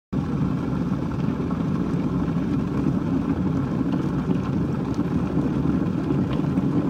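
A steady, loud low roar like a running engine, which starts abruptly and holds level without any change in pitch.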